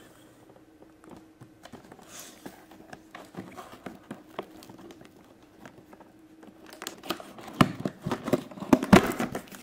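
Hands handling and opening a cardboard toy box: light taps and scrapes of fingers on the card, then a quick run of louder rustling and clicking as the box flaps and packaging are worked open over the last few seconds.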